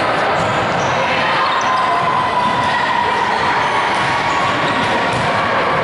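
Volleyballs being struck and bouncing on a hardwood gym floor, with short knocks over the constant echoing din of a busy gymnasium.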